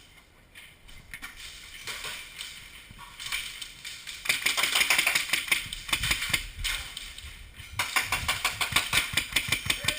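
Airsoft guns firing rapid strings of shots: a dense clatter of about two seconds starting around four seconds in, then an even, rapid train of about seven shots a second from around eight seconds on.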